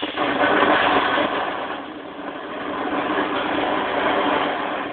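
Sparkler bomb (a packet of sparklers bundled together) burning fiercely: a loud, crackling hiss that starts suddenly and keeps going, swelling twice.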